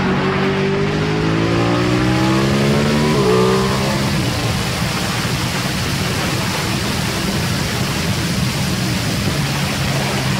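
Ducati Panigale motorcycle engine heard onboard at speed: its pitch rises under acceleration for about two and a half seconds, drops sharply a little over three seconds in, then holds a steadier note. Heavy wind rush over the microphone runs under it.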